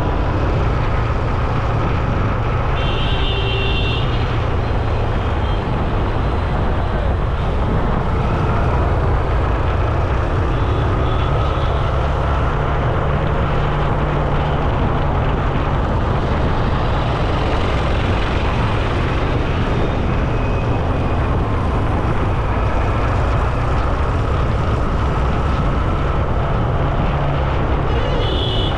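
Steady road noise heard while riding along a road: heavy low rumble of wind and traffic on an action camera's microphone. A short high-pitched beep sounds about three seconds in.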